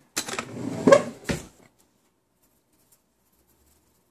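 A few spoken words and one sharp click in the first second and a half, then the sound cuts out to dead silence.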